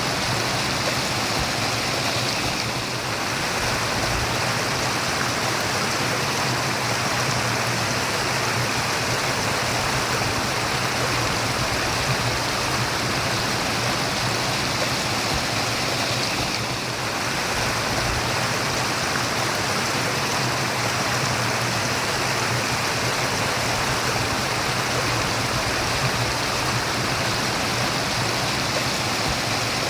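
Running water of a brook murmuring steadily, an even rushing babble with no breaks.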